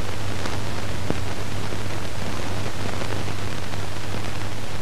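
Steady hiss with a low hum from an old film soundtrack, with a few faint clicks of crackle.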